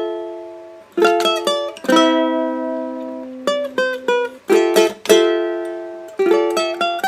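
Intro theme music on plucked strings: short chords and single notes struck in quick clusters, each ringing out and fading before the next.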